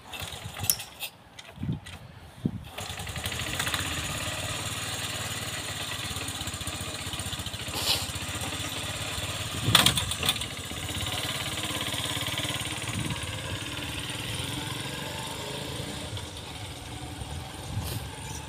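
Small trail motorcycle's engine starting about two and a half seconds in, then running steadily at idle, with short louder bursts twice around the middle. Near the end it grows fainter as the bike rides away.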